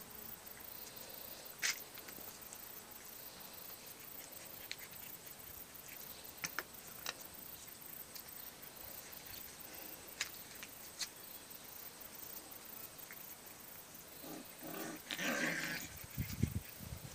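Five-week-old Rottweiler puppies playing: a few faint, scattered clicks, then a louder, noisy stretch of puppy vocalising about fifteen seconds in.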